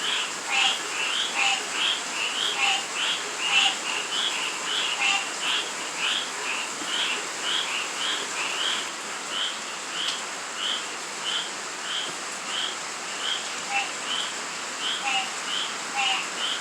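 Frogs and toads calling in rain: a chorus of short, high calls repeating about twice a second, with a few lower calls mixed in. Under them is a steady hiss of falling rain.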